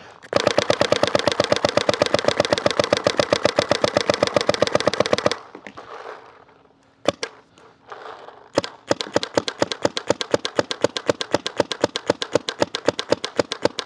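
GOG eNMEy mechanical paintball marker firing rapid strings of shots on compressed air. A few seconds in there is a pause with only a couple of single shots before the fast firing resumes.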